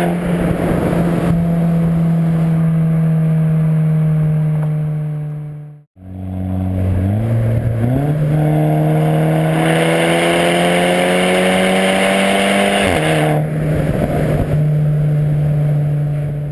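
The 2.0-litre turbocharged four-cylinder of a 2010 Volkswagen Golf R with a full 3-inch CTS exhaust, running at high revs and echoing in a road tunnel. About a third of the way in the sound fades out briefly. Then the revs step up twice and climb steadily under acceleration, before dropping sharply at a gear change a few seconds from the end.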